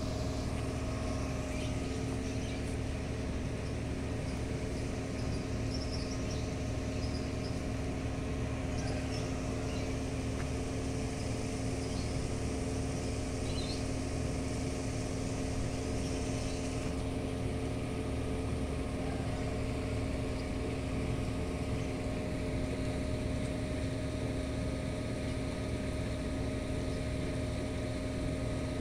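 Steady mechanical hum of a running motor or engine, an even drone with several constant pitches that does not change.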